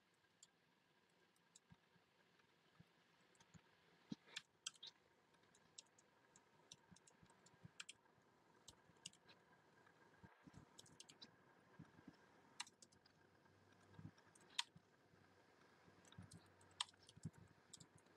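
Faint, irregular clicks of computer keys being pressed, some singly and some in short clusters.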